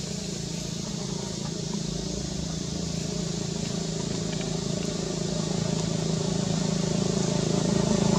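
A motor vehicle's engine running steadily, growing louder throughout as it approaches.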